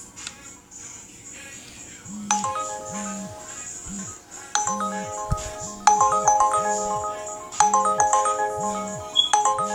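Phone ringtone: a short electronic chime melody over a pulsing low beat, starting about two seconds in and repeating every second and a half or so.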